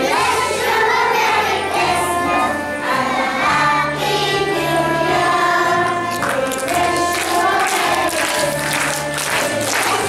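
A group of young children singing a song together over backing music with a steady bass line.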